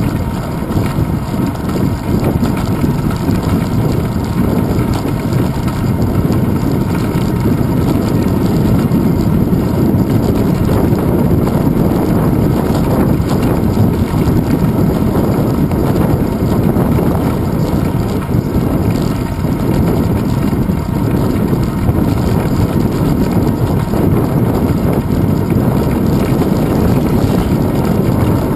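Steady wind rush and buffeting on a handlebar-mounted action camera's microphone as the bicycle rolls along, with a low rumble of tyres over paving stones.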